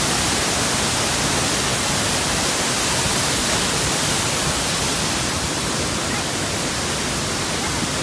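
Waterfall in full flow: a steady, loud rush of water falling and churning into the pool below.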